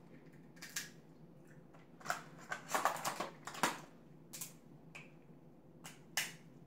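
Steamed crab leg shells being cracked and snapped apart by hand: a string of sharp cracks and crunches, thickest about two to four seconds in.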